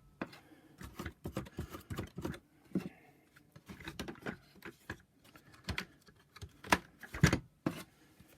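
Irregular light clicks and knocks of the plastic floor head and parts of a Shark DuoClean vacuum being handled and fitted back together by hand.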